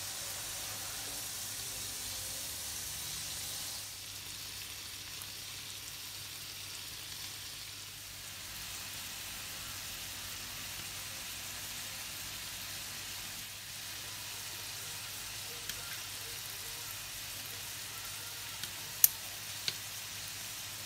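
Shrimp sizzling as they fry in oil with garlic and ginger in a frying pan, a steady hiss. Near the end come a few sharp clicks of metal tongs against the pan, the loudest about 19 seconds in.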